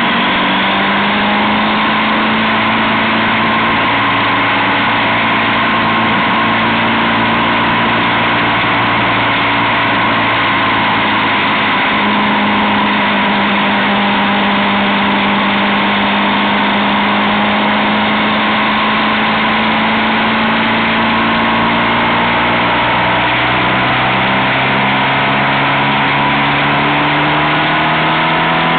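Motorcycle engine running at road speed under heavy wind rush, its pitch holding fairly steady, then rising over the last few seconds as it accelerates.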